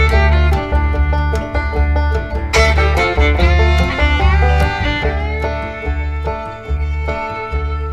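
Background music: an upbeat country or bluegrass-style tune with fiddle and plucked strings over a steady pulsing bass.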